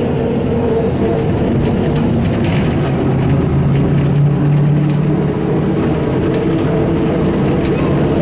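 Ikarus 260 city bus's diesel engine and drivetrain running under way, heard from inside the passenger cabin: a steady, loud drone whose note grows a little stronger around the middle.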